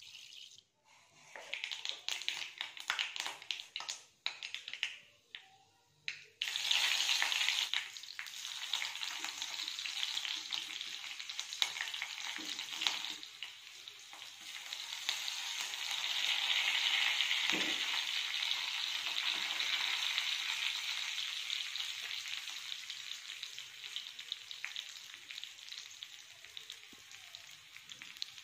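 Onion, green chilli and dried red chilli frying in coconut oil in a black iron kadai. First come scattered sharp crackles, then from about six seconds in a steady sizzle that swells in the middle.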